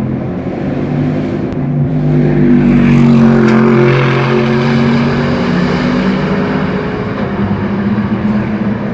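Race car engines running at a fairly steady pitch, growing louder about two to four seconds in.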